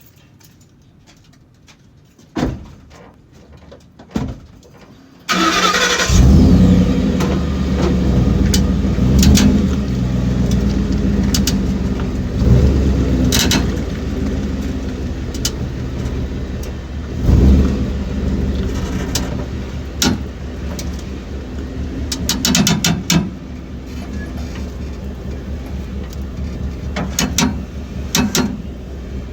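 Ford F-150 pickup engine started about five seconds in after two knocks, then running, with sharp pops at irregular intervals: the rear-end popping the owner is chasing despite new shocks and springs.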